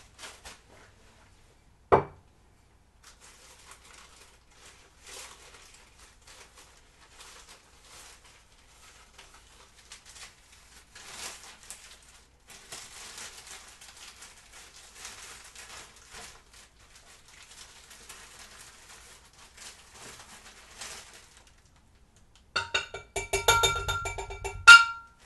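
Dry powdered dextrose poured from a plastic bag into a measuring cup, a faint grainy rustle with the bag crinkling, after a single sharp knock about two seconds in. Near the end comes a louder, pitched squeaking for a couple of seconds.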